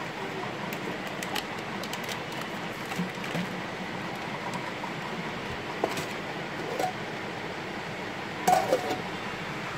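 Steel plates being handled: a few light knocks and taps over a steady background hum, with a louder knock near the end as a steel plate is lifted.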